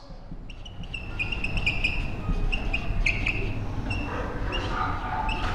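Whiteboard marker squeaking against the board as words are written, a run of short high-pitched chirps over a few seconds.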